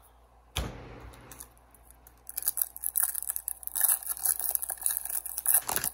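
A trading card pack's foil wrapper being torn open and crinkled: a sharp click about half a second in, then a dense crackling rustle from about two seconds in.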